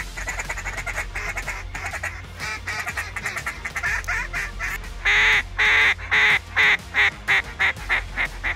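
Duck call blown by a hunter. It opens with a run of quick, softer quacks; from about five seconds in comes a loud string of quacks that get shorter and closer together as it trails off.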